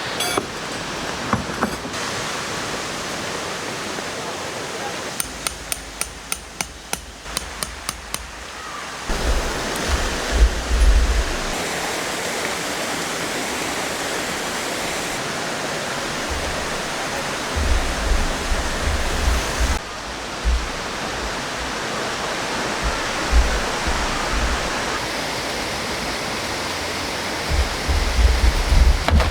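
Rushing mountain stream: a steady, loud wash of water. A quick run of about a dozen sharp clicks comes between about five and eight seconds in, with low thumps now and then.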